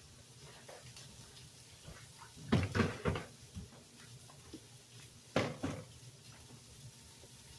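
Kitchen cupboard being opened and shut with a clatter of knocks, twice: a burst about two and a half seconds in and another at about five and a half seconds.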